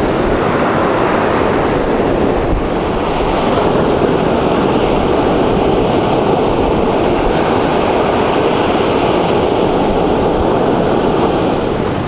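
Sea of Azov surf: small waves breaking and washing up onto a sandy beach in a steady rush.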